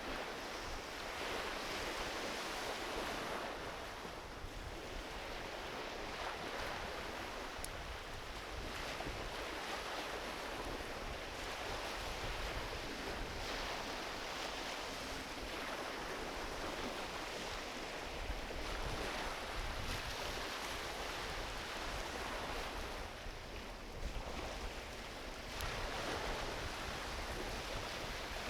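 Ocean waves washing onto a beach: a steady rush that swells and eases every several seconds. A couple of faint sharp pops from a driftwood campfire come through it.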